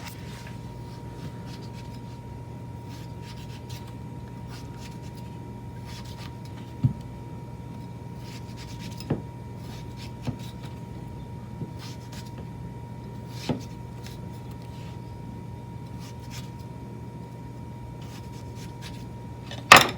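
A knife tapping against a cutting board a few times while vegetables are cut, single sharp clicks spaced irregularly with the strongest near the end, over a steady low hum with a faint high whine.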